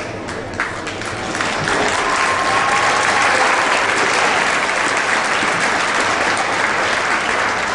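Crowd applauding, building about a second and a half in and easing off near the end.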